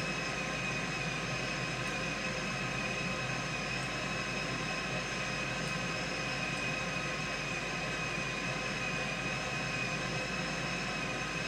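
Steady machine whir: an even rushing noise with several fixed, high-pitched whining tones, unchanging in level.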